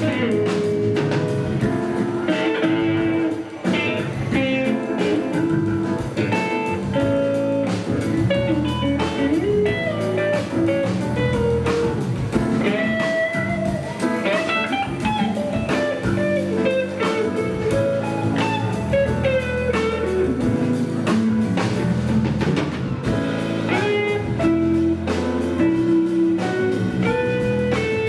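Live instrumental band music, led by guitar over a drum kit, in a bluesy style.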